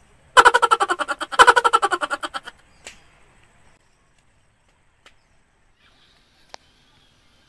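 Two bursts of rapid, evenly pulsed laughter in the first two and a half seconds, then near quiet broken by a few faint clicks.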